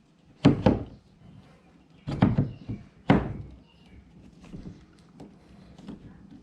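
Several sharp clunks and knocks in the first half, then fainter taps, as the newly mounted Scotty rod holder and its parts are handled on the plastic kayak.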